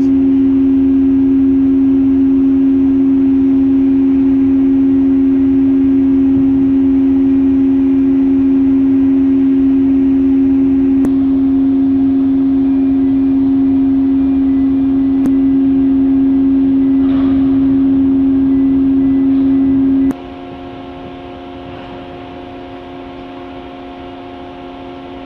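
Loud, steady machinery hum from the ship, with a strong low tone holding one pitch. About twenty seconds in it drops abruptly to a quieter hum with several higher steady tones.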